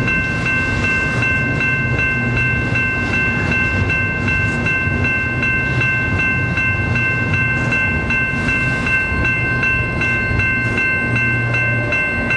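Double-stack container train's well cars rolling past with a low rumble. Over it runs a steady high ringing that repeats about two to three times a second and carries on after the last car clears about halfway through.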